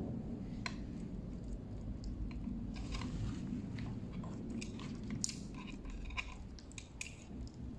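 Hands handling an electric scooter's wiring harness and plastic plug connectors, tucking them into the wiring compartment: scattered small plastic clicks and crackling rustles over a steady low background hum.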